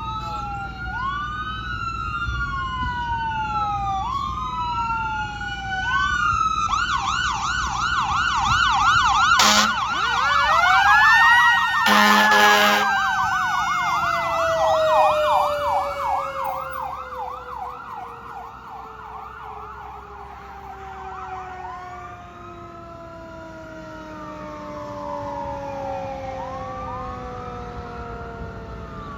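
Fire engine responding with its electronic siren, first in a slow rising-and-falling wail, then about seven seconds in switching to a fast warbling yelp. The air horn sounds in two blasts, the second longer, while a deeper siren tone climbs and then falls away slowly over many seconds. The siren grows fainter in the second half and goes back to slow wail sweeps near the end.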